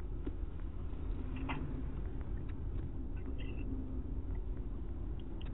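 An open phone line with the caller on hold: a steady low background hum with a few faint clicks and brief faint sounds, no voices, heard through the narrow telephone band.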